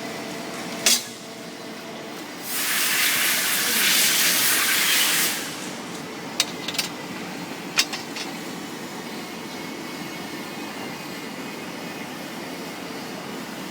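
Flange-making machine running with a steady mechanical hum. About two and a half seconds in, a loud hiss of released air lasts nearly three seconds, and sharp clicks come before and after it.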